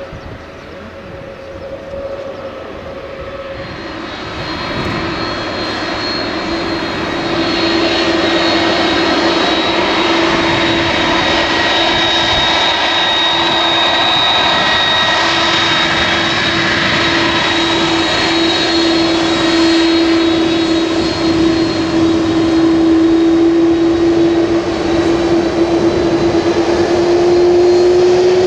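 Jet airliners taxiing at low thrust. A short stretch of one jet comes first, then a twin-engine Airbus A330's turbofans: a steady whine with a low hum and a high whistle, which grows louder about seven seconds in as the jet comes closer and edges up in pitch near the end.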